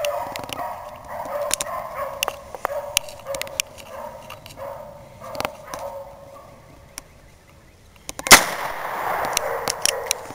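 Rabbit hounds baying as they run a rabbit, then a single revolver shot a little over eight seconds in, the loudest sound, with the baying going on after it.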